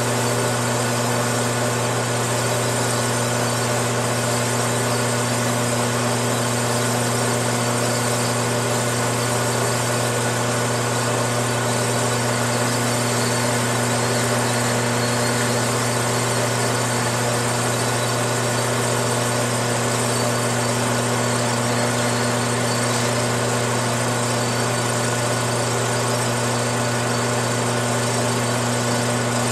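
Metal lathe running steadily under power feed with a constant hum, taking a light finishing face cut across a two-stroke 50cc four-wheeler cylinder head to flatten its warped gasket face.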